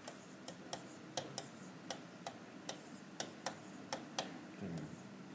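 Faint, irregular sharp taps or clicks, about a dozen, unevenly spaced, over a low room hum.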